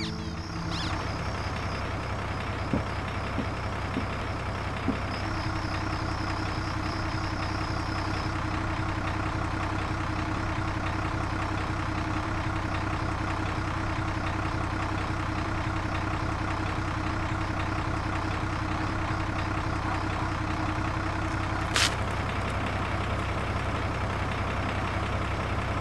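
Motorcycle engine idling steadily. A single sharp click near the end.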